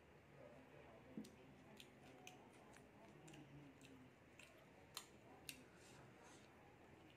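Faint eating sounds: scattered soft clicks of fingers picking food from a plate and quiet mouth and finger-licking sounds, with no steady sound underneath.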